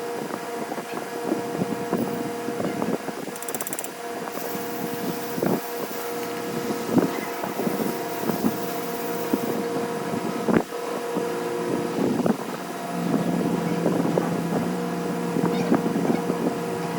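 Workshop sounds: a steady machine hum with irregular clinks and knocks, one sharp knock loudest about ten seconds in, and a lower steady hum joining near the end.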